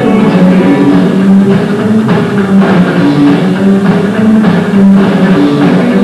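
Live rockabilly band playing an instrumental passage: electric guitar over upright bass and a small drum kit.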